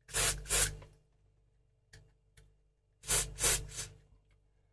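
Aerosol switch cleaner sprayed through its red extension straw into the clock radio's switches in short hissing bursts: two near the start and three more about three seconds in.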